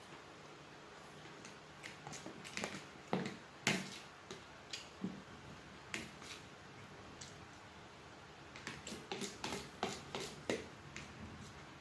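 Eating sounds: irregular wet clicks and smacks of chewing and handling food, in two bursts, one about two to four seconds in and another around nine to ten seconds.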